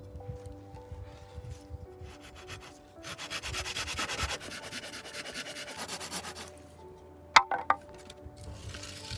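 Folding pruning saw cutting through a wooden branch in quick back-and-forth strokes, starting about three seconds in and stopping after about three and a half seconds. Two sharp wooden knocks follow close together near the end.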